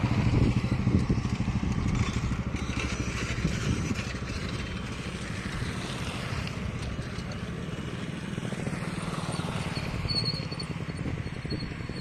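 A motor vehicle engine runs with a steady low hum, loudest at the start and easing off over the first few seconds. There is a short high chirp about ten seconds in.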